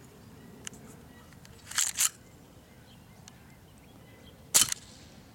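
KWC CO2 gas-blowback Desert Eagle airsoft pistol firing two shots, each a sharp crack of gas with the slide cycling back: the first, a double crack, about two seconds in, the second near the end.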